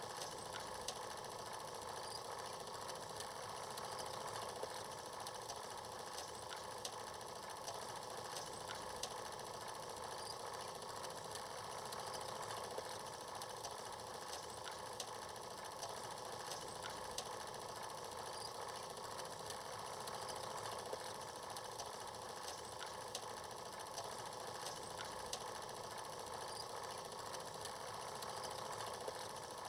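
Steady mechanical clatter with hiss and faint crackle from a film projector running, the usual sound on a transfer of silent film.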